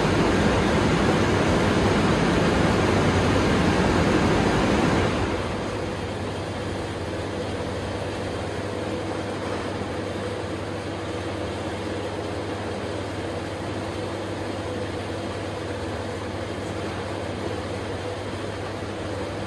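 Cargo air shower blowing a loud rush of air from its nozzles, which cuts off suddenly about five seconds in. A quieter, steady low hum carries on after it.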